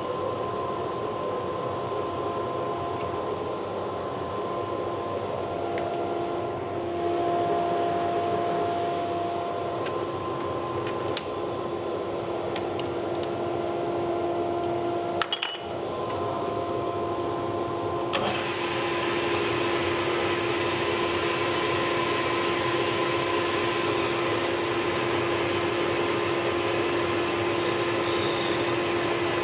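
Cuemaker's lathe running steadily with a constant hum. There is a brief click and dip about 15 seconds in, and from about 18 seconds in it grows a little louder and brighter.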